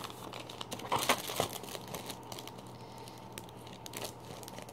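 Paper bags and plastic wrapping crinkling as they are handled, a run of small rustles and crackles, loudest about a second in.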